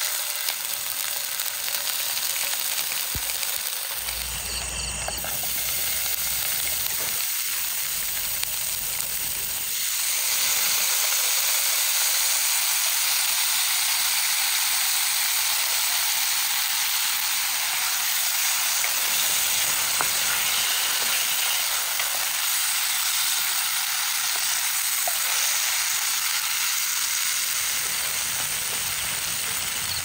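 Paneer frying in hot oil in a pan, a steady sizzle that grows louder about ten seconds in.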